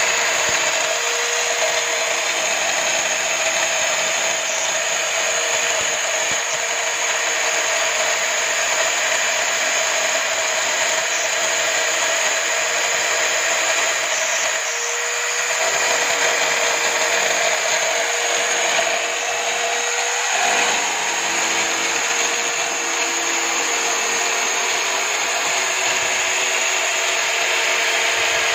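An electric drill, mounted upside down as a homemade spindle sander, runs steadily with a whine, its sanding drum grinding against the edge of a wooden board.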